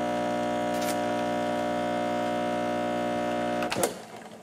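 Breville Infuser espresso machine's vibratory pump humming steadily at full brewing pressure while the shot pours, then cutting off with a short click near the end as the shot is stopped at its target yield of about 40 g.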